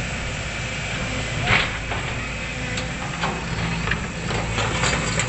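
Sumitomo hydraulic crawler excavator's diesel engine running steadily while it works. There is a loud crack about a second and a half in, and lighter cracks and knocks toward the end.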